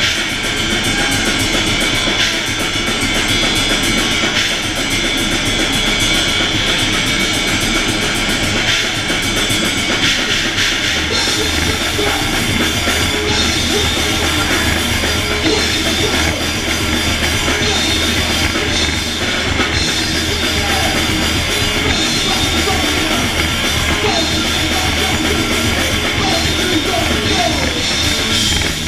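Thrash metal band playing live: distorted electric guitars, bass and a drum kit, loud and continuous, with the low bass note shifting about eleven seconds in.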